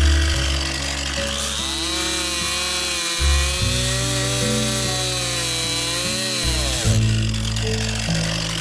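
Stihl MS261 two-stroke chainsaw cutting through a log over background music. Its engine pitch sags under load and rises again as the cut finishes, from about a second in until near the end.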